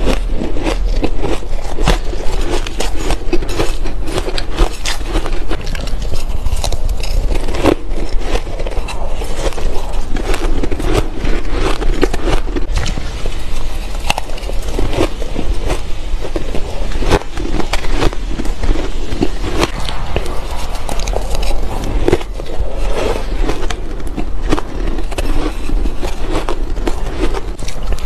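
Close-miked chewing and crunching of mouthfuls of shaved ice: a dense, steady run of small crisp crunches and crackles.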